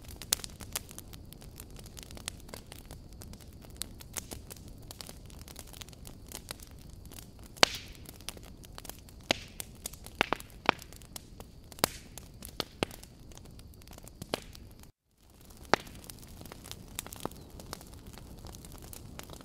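Fire crackling: irregular sharp pops and snaps over a low steady rumble. The sound cuts out for a moment about fifteen seconds in.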